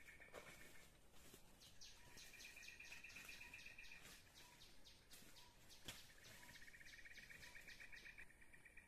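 Faint forest ambience: insects trill in phrases of about two seconds, with runs of quick high chirps over them and a single sharp click about six seconds in.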